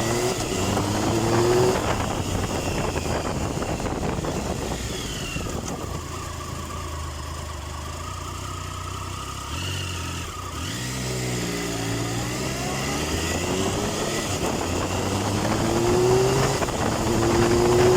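Triumph Tiger 1050's inline-triple engine pulling away, its pitch rising through the gears, easing off for several seconds in the middle, then accelerating again with rising pitch toward the end.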